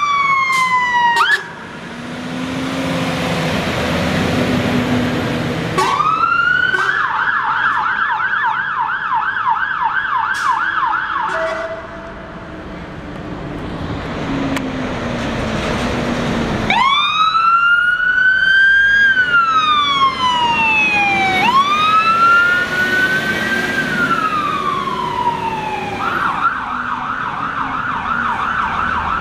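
Fire engine electronic sirens switching between modes: a slow rising and falling wail and a fast warbling yelp, with stretches of truck engine and road noise between them.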